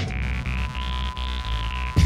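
Electronic dance music: a synthesizer tone climbs and then falls back over a steady deep bass, with the bright top end dropped out.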